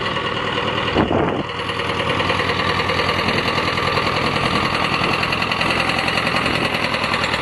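The two-cylinder air-cooled D-21 diesel of a T-25 tractor running with a fast, even pulsing beat as the tractor drives up close. It has just been tow-started after its cylinder heads were restored and its piston rings replaced.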